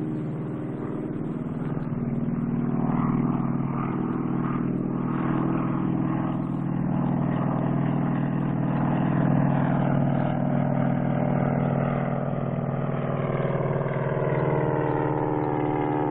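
Stinson L-5 Sentinel's six-cylinder Lycoming piston engine droning steadily in flight, its pitch sinking slowly over the last few seconds.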